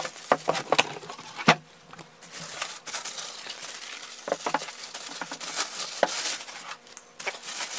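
Plastic bag crinkling and rustling as it is handled and pulled off a bookshelf speaker, with scattered sharp clicks, most in the first second and a half.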